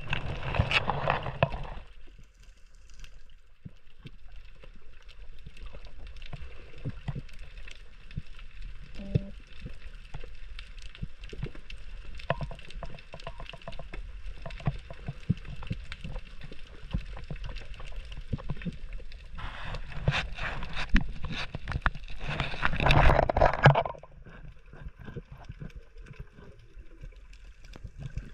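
Underwater sound picked up by the camera: a steady crackle of fine clicks, with two louder rushing bursts of water noise, one at the start and one lasting a few seconds about two-thirds of the way through.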